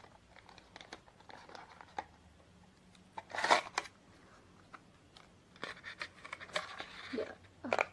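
Cardboard and paper packaging of a Bluetooth earbuds box being handled: a paper sleeve scraped off and the inner box slid out, with rustling, scratching and light clicks. The loudest rustle comes about three and a half seconds in, and a run of scratchy clicks follows later.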